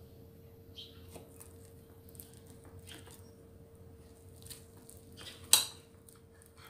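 Table knife cutting through a potato and egg omelette on a ceramic plate: faint scrapes and light clicks of the blade against the plate, with one sharper click near the end.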